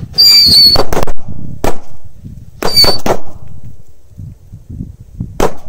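A bundle of Corsair firecrackers going off on creek ice: a shrill whistle twice, with a string of about six sharp bangs, the last one near the end.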